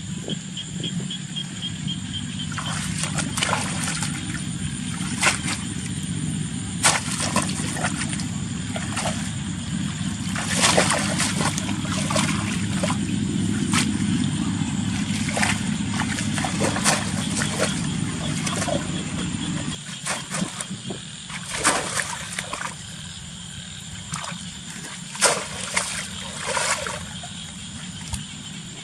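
Water splashing and sloshing, with many short, sharp splashes scattered throughout, over a steady low hum that cuts off about two-thirds of the way through.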